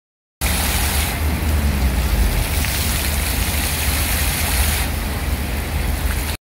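Steady noise of road traffic with a strong low rumble, mixed with the hiss of a city fountain's water jets splashing into its basin; it cuts in suddenly about half a second in.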